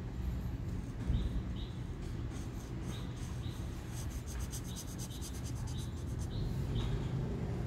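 Marker tip scratching across paper in quick back-and-forth colouring strokes, about six a second, densest from about four to six and a half seconds in.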